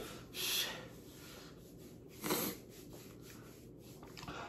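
A man breathing out sharply in short breathy puffs, about half a second and two seconds in, with a fainter one near the end, as his mouth burns from extremely spicy noodles.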